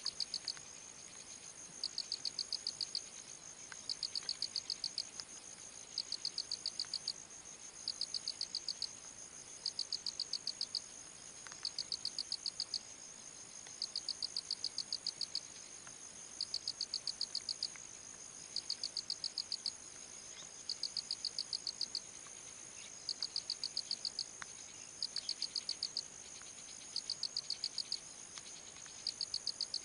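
Insects calling in the grass: one keeps up a continuous high-pitched buzz while another gives rapid pulsed chirps in trains about a second long, repeating every two seconds or so.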